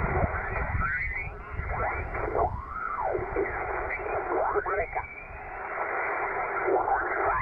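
Yaesu FT-450D transceiver's speaker playing shortwave single-sideband reception: a voice transmission mixed with static, thin and narrow-sounding.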